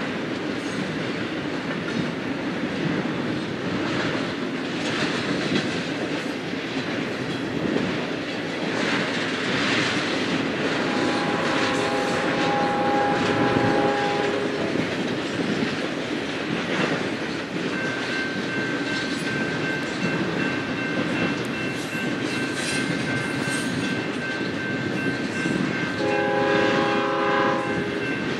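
Union Pacific locomotive's multi-chime air horn sounding twice, a blast of about three seconds some eleven seconds in and a shorter one near the end, over the steady rolling rumble and rail noise of a train. A thin high steady whine comes in about halfway through.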